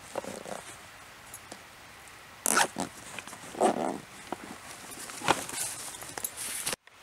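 A nylon backpack being handled and packed: irregular rustling and scraping of the fabric, with a zipper being pulled and a few sharp clicks. The sound drops out abruptly just before the end.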